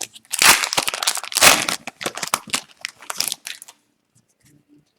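Foil wrapper of an Upper Deck hockey card pack crinkling and tearing as it is opened by hand, with two louder rips about half a second and a second and a half in; it falls quiet near the end.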